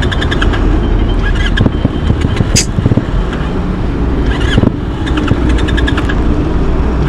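Steady low rumble of passing road traffic, with clusters of short high chirps near the start and again about five seconds in, and a single sharp click midway.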